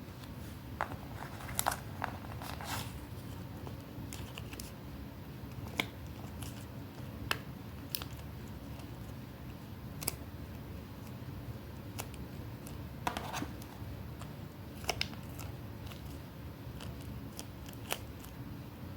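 Scissors snipping paper in scattered short cuts and clicks, over a steady low background hum.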